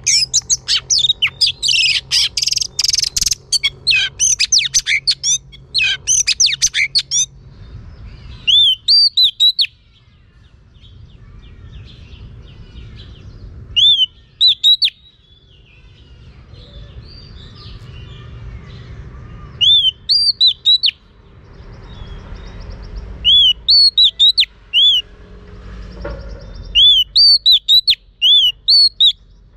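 Female oriental magpie-robin singing. It opens with a fast, dense run of varied notes for several seconds, then gives short phrases of three or four clear, arched whistled notes, repeated every few seconds.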